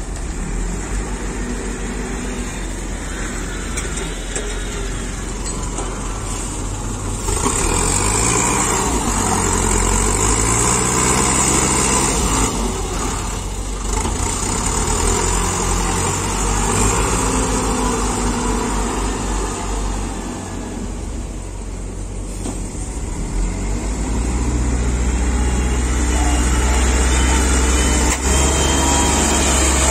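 Diesel engine of an LW180 wheel loader working, its pitch rising and falling as it revs up and down. It gets louder about a quarter of the way in and again near the end.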